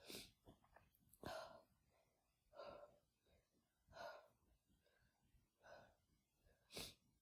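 A woman's soft, short gasping breaths and sniffs, six of them about a second apart: the catching breaths of a sneeze building up, brought on by chhinkni sneezing powder during a head cold.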